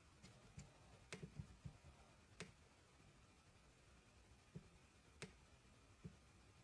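Near silence with about ten faint, sharp clicks at irregular intervals, most of them bunched in the first two and a half seconds.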